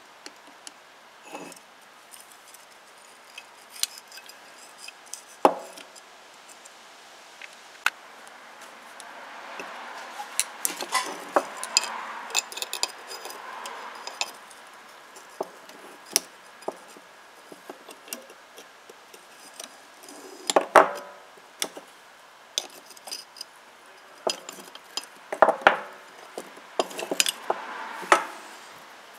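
Metal clinks and clanks of rusty vise-grip locking pliers and their parts being handled, with a few louder knocks and a few seconds of rubbing noise in the middle.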